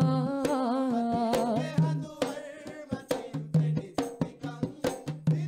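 Boduberu drumming with a lead singer's voice over it, and hand-held jingling percussion from a shaker and tambourine. The singing is strongest in the first two seconds; after that, sharp drum strokes carry most of the sound.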